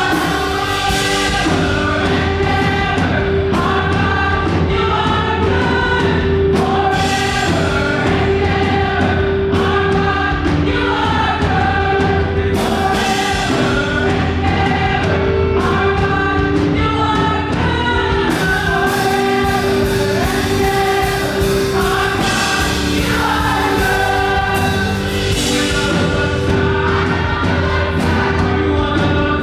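Live up-tempo gospel worship music: a group of voices singing together over a band with a steady drum beat and a sustained bass.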